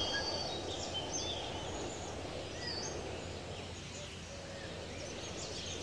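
Rural ambience: a steady low hiss with scattered short, high bird chirps.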